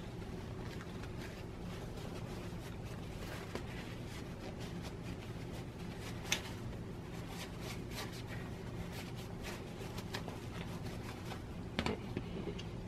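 Paper towel crinkling and rubbing as the parts of a rotary cutter are wiped clean of lint and dirt, with scattered small clicks and one sharp tick about six seconds in. Near the end there is a short clatter of small hard parts on the cutting mat, over a steady low hum.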